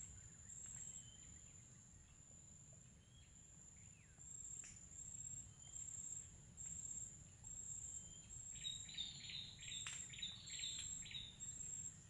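Birds calling: scattered thin chirps, then about two-thirds of the way through a quick run of repeated chirps. Beneath them runs a steady high insect trill that breaks off and resumes every second or so, over a low wind rumble.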